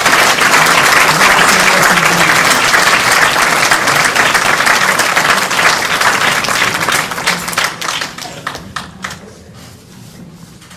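An audience applauding: steady dense clapping that thins out about eight seconds in to a few scattered claps and then fades.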